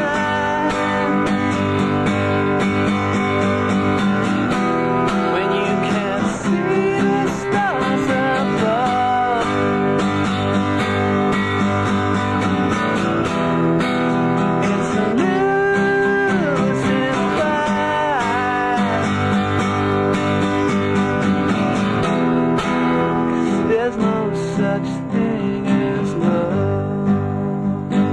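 Guitar song from a tape recording: strummed acoustic guitar with a melody line that slides between notes above it.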